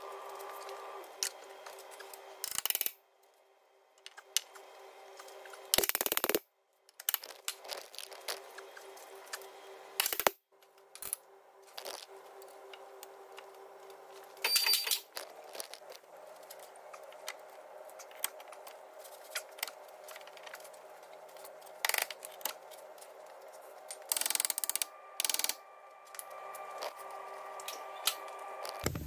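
Scattered metallic clinks and knocks as a car's front suspension arm and its bolts are worked and tapped into place with hand tools, over a faint steady hum. The sound drops out abruptly a few times.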